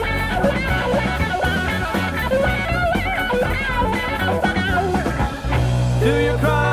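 Gospel band music: a guitar-led melody over bass and a steady beat. About five and a half seconds in the mix dips briefly, then comes back over a held bass note.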